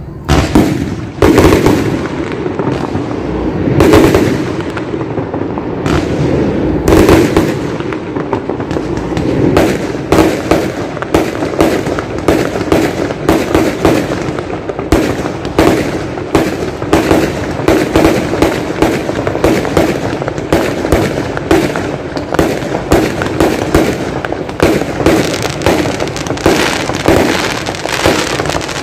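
Fireworks exploding overhead. There are a few big bangs spaced a couple of seconds apart, then from about nine seconds in a rapid string of sharp bangs, roughly two a second.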